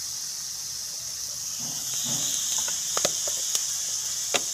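Chopped onion and green chilli sizzling in hot oil in a metal pan, a steady hiss that grows a little louder about two seconds in. A slotted metal spatula stirring and scraping the mixture gives a few sharp clicks against the pan in the second half.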